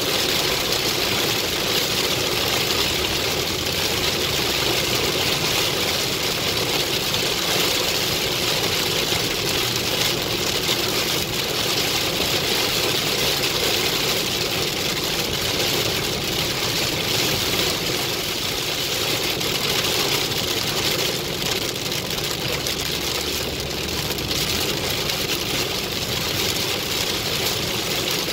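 Heavy rain hitting the roof and windshield of a moving car, heard from inside the cabin as a steady, dense hiss, with the car's engine and tyres on the wet road underneath.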